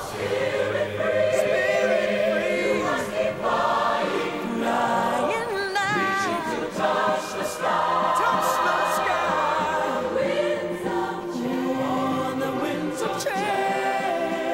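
A choir singing a slow song in long, held notes with vibrato, over instrumental backing.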